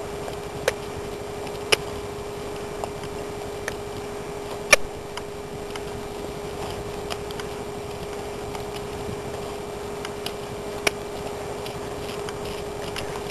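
Steady hum and hiss of camcorder noise, with a few sharp irregular clicks, the loudest about five seconds in.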